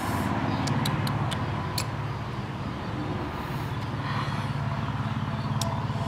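A motor running steadily with a low, even rumble, with a few faint sharp clicks over it.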